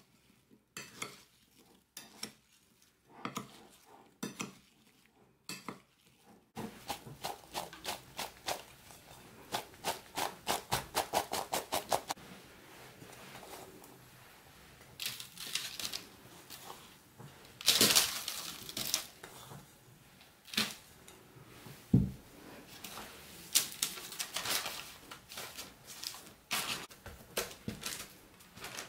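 A metal spoon clinking and scraping in a bowl as sliced fruit is stirred with sugar and starch. Then a quick run of regular strokes, about four a second. Then rustling and knocking as crumbly butter dough is dropped and pressed by hand into a parchment-lined baking tin, with a sharp knock and a dull thump among them.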